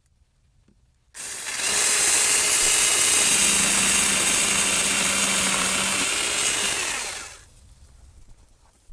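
Saker 4-inch 20 V cordless mini electric chainsaw switching on about a second in and running for about six seconds, cutting through a branch, then winding down.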